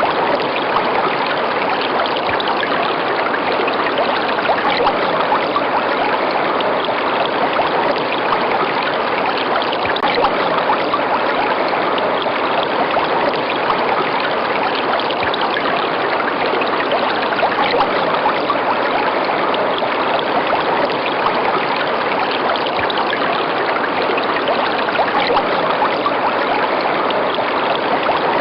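River water running steadily over rocks, a dense, even rushing without pause.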